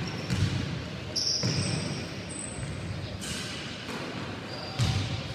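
A basketball bouncing on a wooden gym floor with a few dull thuds, mixed with short high squeaks of sneakers, during a youth basketball game in a large hall.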